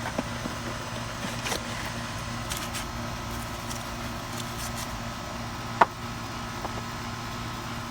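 Light clicks and rustles of a new air conditioner run capacitor's packaging being opened by hand, with one sharp click about six seconds in, over the steady low hum of a running outdoor air conditioner unit.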